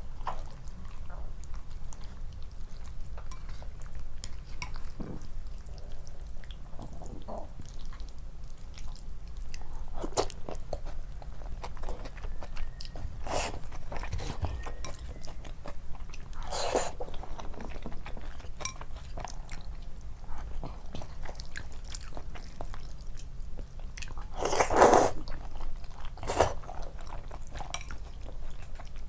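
A person eating: steady chewing and biting, with a handful of sudden louder bites or smacks scattered through, the loudest about three-quarters of the way in.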